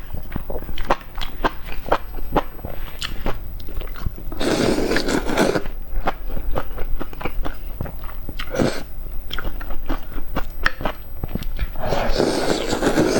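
A person biting and chewing eggs close to the microphone, with many quick, sharp mouth clicks. Two longer, noisier stretches come about four and twelve seconds in.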